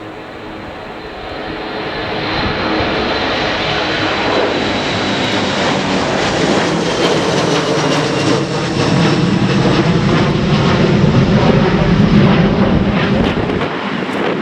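Boeing 737 airliner's jet engines at takeoff power, growing louder over the first few seconds as it rolls past, with a high whine that slides slowly down in pitch over a steady roar.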